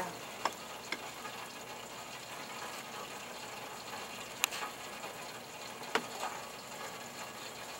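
Hot oil in a Weston 12-cup electric deep fryer giving a steady, even sizzle. A few light clicks come from the fryer's lid and basket being handled, the sharpest about four and a half and six seconds in.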